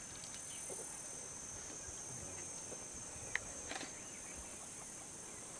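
Steady, high-pitched drone of insects, with a single sharp click a little past halfway.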